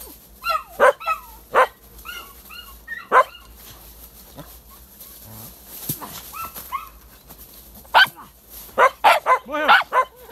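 Dogs barking and yelping in bursts, with a quieter stretch in the middle and a quick run of barks near the end.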